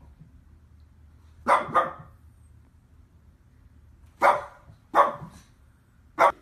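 A dog barking: two quick barks, then three more single barks spaced about a second apart.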